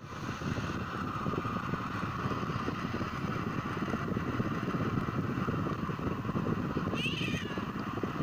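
Black-and-white cat yowling in one long drawn-out cry, then a shorter, higher meow about seven seconds in, over a steady low rumble.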